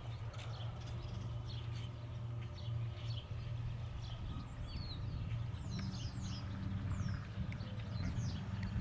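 Steady low hum of a distant hay bale grinder driven through its PTO by a John Deere tractor, the noise heard from a distance. Small birds chirp briefly over it, more often in the second half.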